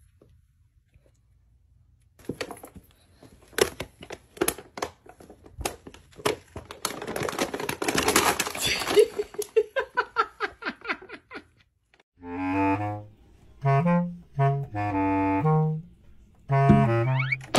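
A paper bag rustling and crinkling as a cat paws at it, with many quick crackles for about ten seconds. Near the end it gives way to a short melody of several held notes.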